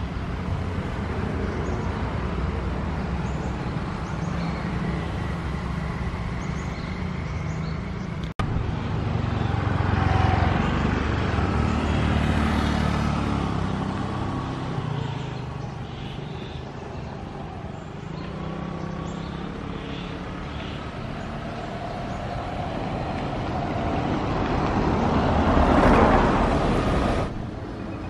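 Road traffic noise with passing vehicles. Engine and tyre noise swells and fades as a vehicle goes by about a third of the way in, and again near the end, where it breaks off abruptly.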